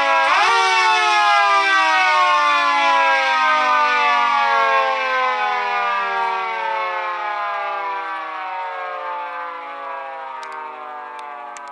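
Miniature Federal Signal 2T22-style dual-tone siren with a three-phase motor, given a short growl: it spins up quickly to a high chord, then coasts down with both tones falling slowly and gradually fading. A few faint clicks come near the end.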